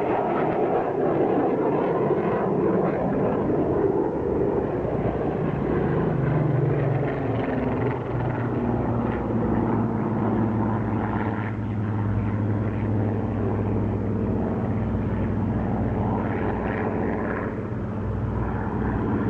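Eurofighter Typhoon jet passing, a broad rushing noise. About seven seconds in it gives way to a Spitfire's piston engine droning at a steady pitch.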